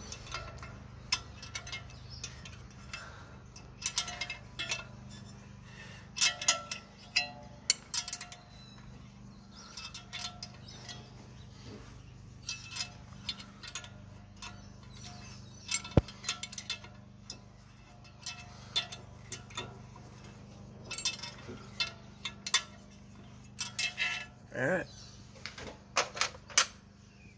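Wrench and metal parts clinking while the engine fan's mounting bolt is undone: irregular light metallic clicks and clinks, some with a short ring.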